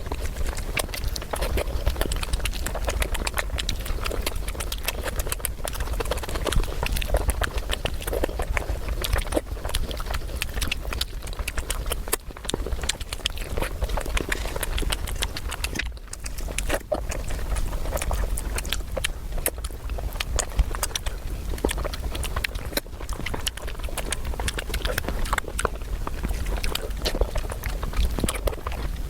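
Close-miked eating sounds: steady chewing with many quick, irregular crunches and wet mouth clicks.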